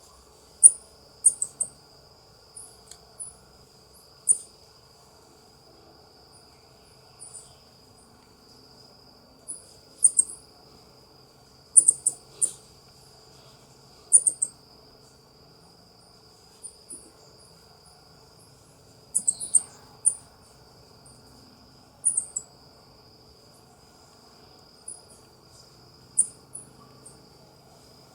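South American coati (Nasua nasua) giving short, very high-pitched chirps, singly or in quick runs of two to four, every second or few. A faint steady high-pitched hum runs underneath.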